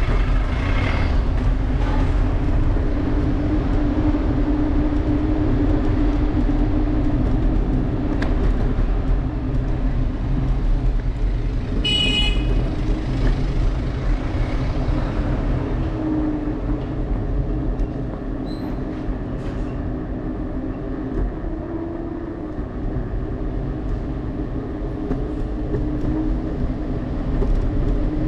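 A motor vehicle's engine and road rumble run steadily while riding through city streets, the engine hum rising and falling a little. About twelve seconds in comes a brief, high-pitched horn toot.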